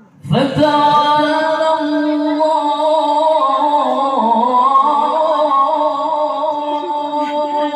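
A male qari's voice holds one long melismatic note of Quran recitation in the melodic tilawah style. The note starts abruptly a third of a second in, wavers in ornaments and dips in pitch around the middle, then steadies again.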